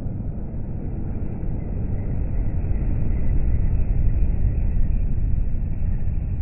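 MAN lorry pulling a curtainside trailer passing at speed: a low diesel and tyre rumble that builds as it approaches, is loudest about four seconds in as it goes by, then eases off.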